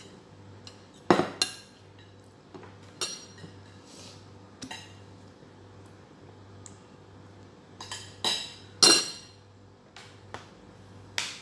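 Spoon and dishes clinking at a meal table in scattered short clinks and knocks, the loudest about a second in and again near nine seconds.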